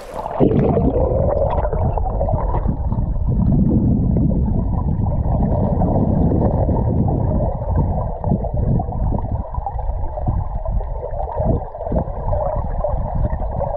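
Shallow river current heard from under the water: a muffled, steady low rushing and gurgling with all the high tones gone.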